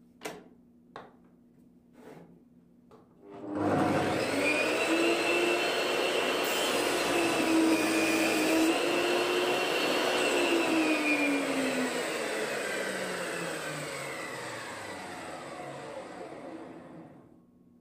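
A few sharp knocks, then a table saw motor starts up and runs. Its pitch sags briefly as the blade cuts through a wooden block. After it is switched off, the saw winds down with a steadily falling whine.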